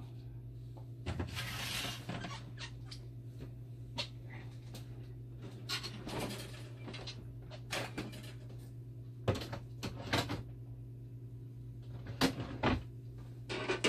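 Hands working on a dialysis machine's heat exchanger and hose fittings: scattered clicks, knocks and scrapes of plastic parts, with a longer rustle about a second in, over a steady low hum.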